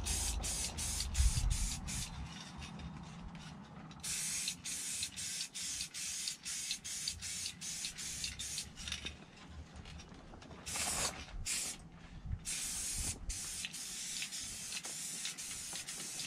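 Aerosol spray-paint can hissing in many short pulses, with a few quieter pauses between sprays.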